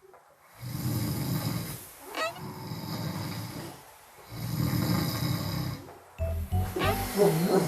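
A man snoring loudly in three long snores of about a second and a half each, over background music that takes over near the end.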